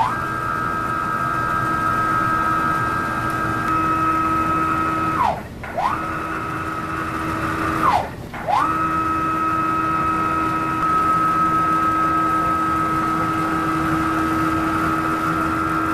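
CNC router's Y-axis stepper motors whining steadily as they drive the gantry along its ball screws. Twice, about five and eight seconds in, the pitch glides down as the gantry slows to a stop and climbs back up as it speeds off again. The travel is running smoothly on the newly replaced motor coupling.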